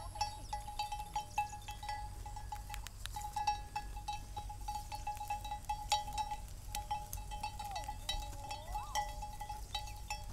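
Quiet farm-field ambience: a steady, pulsing high tone with many scattered light ticks and clicks over a low rumble, and one short call that rises then falls about eight seconds in.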